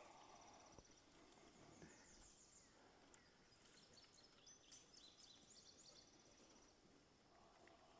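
Near silence: faint outdoor ambience with distant birds chirping, mostly in the middle of the stretch.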